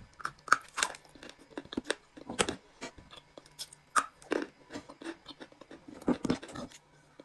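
A stick of edible clay being bitten and chewed close to the microphone: irregular sharp crunches and snaps, the loudest bites about two and a half, four and six seconds in.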